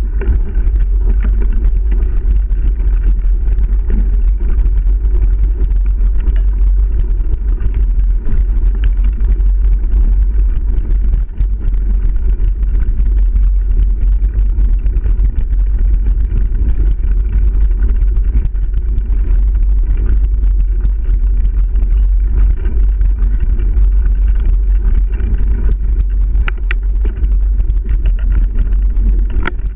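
Steady low rumble of wind buffeting and trail noise on an action camera carried on a mountain bike riding a dirt trail, with a few sharp rattles of the bike over bumps.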